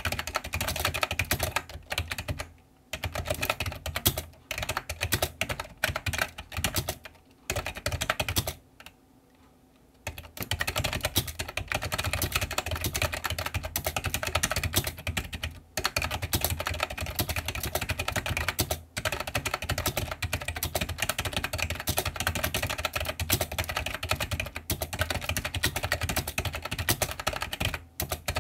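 Fast typing on an iMAGiC G Keyboard II Echo plunger-switch keyboard: a dense run of key clacks, broken by a few short pauses and a longer one of about a second, roughly nine seconds in.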